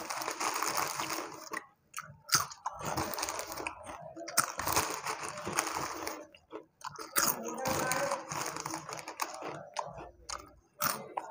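Close-up crunching and chewing of Kurkure, crisp fried corn snack sticks, in irregular bouts with a few sharp crunches, mixed with the rustle of the plastic snack packet as a hand rummages inside it.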